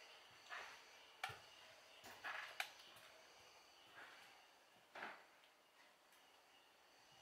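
Near silence, broken by a few faint footsteps and two sharp clicks about one and two and a half seconds in, with soft rustles from someone moving through an empty railway carriage.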